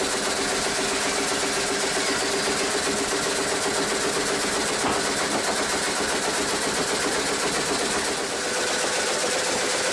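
A machine engine running steadily at a constant pitch, which steps up slightly about eight seconds in.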